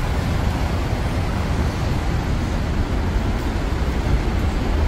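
Steady, even rumbling noise with a constant hiss.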